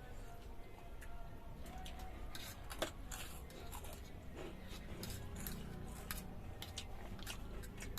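Biting into and chewing crispy fried dal pakoda (lentil fritters): irregular sharp crunches and crackles close to the microphone, starting a couple of seconds in.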